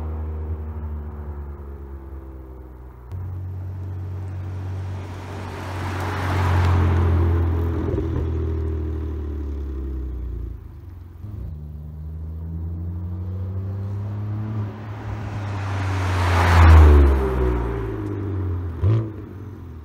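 2014 BMW F82 M4's S55 twin-turbo inline-six, fitted with Akrapovič downpipes and a stainless full exhaust with 200-cell HJS cats, driving past twice. The first pass, about six seconds in, is with the exhaust flaps closed. The second, louder pass, about three-quarters of the way in, is with the flaps open. A short sharp crack comes near the end.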